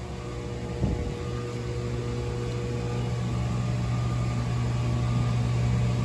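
Steady low machinery hum of running air-conditioning and equipment, slowly growing louder, with a single light knock about a second in.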